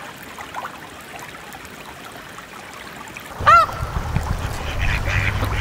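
Steady hiss of heavy rain and running water. About three and a half seconds in, one loud short call rises and falls in pitch, and a low rumble starts with it and carries on.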